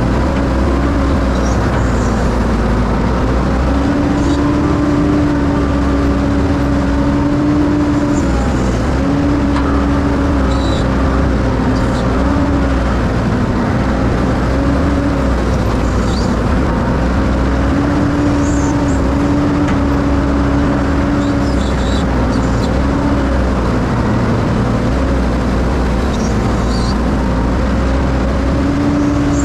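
Excavator engine running steadily as the machine travels, with a droning tone that swells and eases every few seconds.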